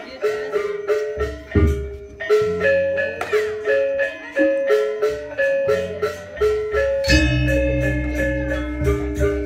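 Balinese gamelan playing dance music: bronze metallophones struck in quick repeated notes, with several deep gong strokes, the biggest about seven seconds in.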